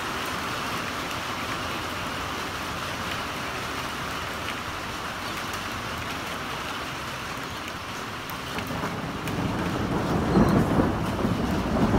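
Steady rain falling in a thunderstorm, an even hiss of drops. About nine seconds in, a low rumble of thunder comes in and grows louder toward the end.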